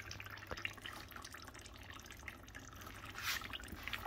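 Leftover coolant dripping and trickling out of a Toyota 2GR-FE V6 engine, faint, with scattered small drip ticks and a brief hiss about three seconds in.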